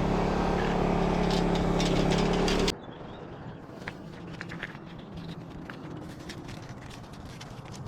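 Engine running steadily at a constant speed, cut off abruptly about three seconds in; a quieter background with faint scattered clicks follows.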